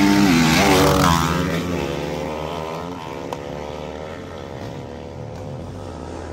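Dirt bike engines revving hard, the pitch rising and falling through the gears, loud for about the first second and then fading steadily as the bikes pull away.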